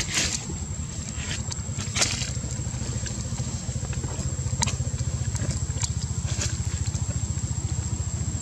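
A small engine running steadily with an even, pulsing low rumble. A thin steady high tone runs along with it, and a few sharp clicks stand out, the clearest about two seconds in.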